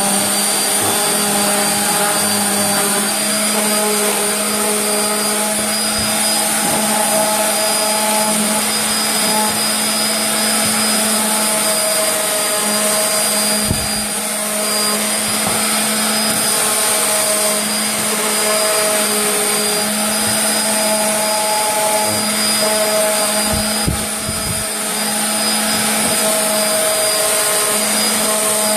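Electric orbital sander running steadily against pallet wood: a constant motor hum with a high whine over the hiss of abrasive on wood, dipping briefly a couple of times as it is pressed onto the edges.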